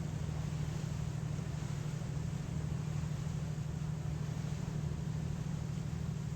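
Passenger ferry's engines running with a steady low drone, over an even hiss of water and air.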